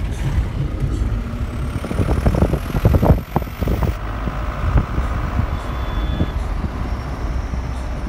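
Vehicle driving along a road, heard from on board: a steady low rumble of engine and road noise, with a cluster of sharp knocks and rattles about two to three seconds in.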